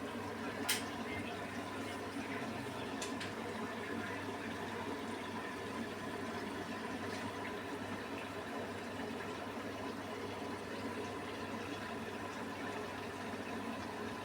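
Beko washing machine drawing in water at the start of a wool 30 °C cycle: a steady rush of water filling through the inlet valve and detergent drawer. One sharp click comes just under a second in.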